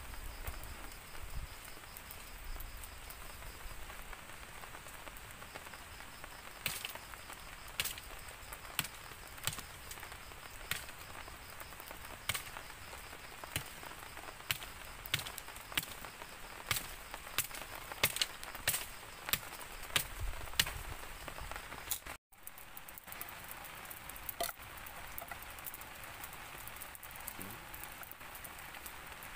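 Wood campfire crackling, with sharp irregular pops over a steady hiss; the pops come thickest in the middle and thin out later.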